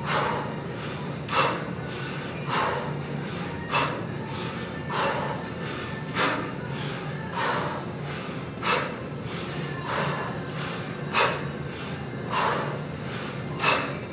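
A man's sharp, forceful breaths, about one every 1.2 seconds, a dozen in all, each timed to a rep of one-arm kettlebell snatches.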